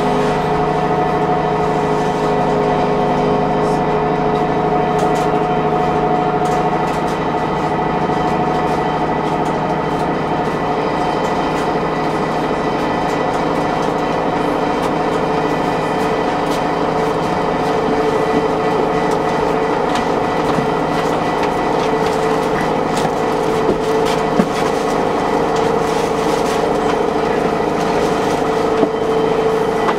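Route bus running, with a steady whine of several held tones over the drive rumble: the weird sound this bus makes. A few light clicks sound in the second half.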